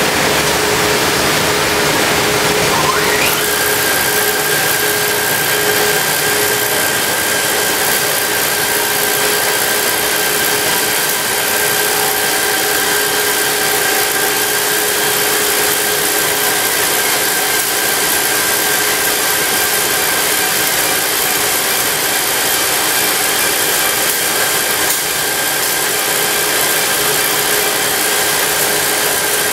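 Asphalt plant machinery, the rotary drum dryer among it, running as a loud, steady mechanical din with constant whining tones. A whine climbs in pitch about three seconds in, then holds steady. The audio plays at double speed, which raises the pitch.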